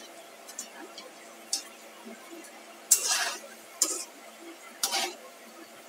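Metal slotted spatula clinking and scraping against a steel kadhai as potato fritters are turned in frying oil: a few short knocks, with the loudest scrapes about three seconds in and near the end, over the faint sizzle of the oil on a low flame.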